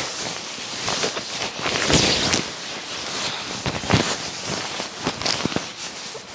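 Shiny nylon puffer jacket rustling and crinkling as it is pulled on and settled over the shoulders, close against a clip-on microphone. Louder swishes come about two and about four seconds in.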